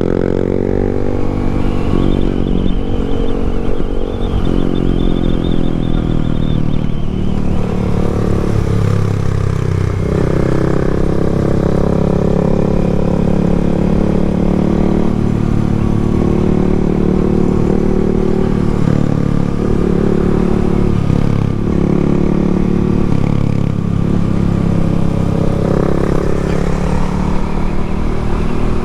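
Yamaha MT-07's parallel-twin motorcycle engine running under way, its pitch rising and falling again and again as the bike accelerates and eases off.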